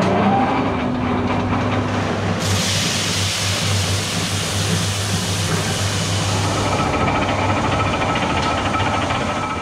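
Electric coffee grinding mill running, its motor whine settling at full speed just after the start over a steady hum. About two and a half seconds in, a loud dense hiss of grinding joins as roasted coffee beans are fed into the hopper.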